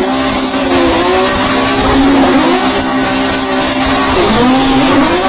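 A car engine held at high revs, its pitch dipping and climbing again a few times, over a loud rushing hiss.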